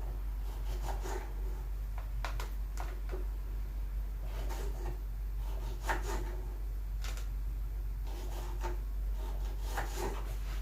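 Kitchen handling sounds: irregular light knocks, taps and short rubs of things being picked up and set down, over a steady low hum.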